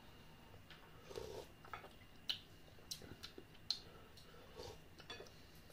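A few faint sharp clicks of a spoon, with soft mouth sounds between them as the borscht is tasted.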